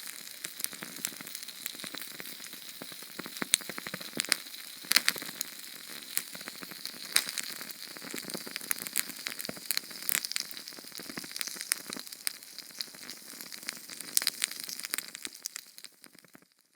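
Sterno canned-heat fuel burning: a steady sizzling hiss with frequent sharp crackles and pops, fading away near the end.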